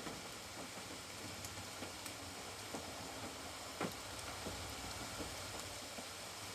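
Rain falling around a caravan: a steady hiss with scattered ticks of single drops, one louder about four seconds in.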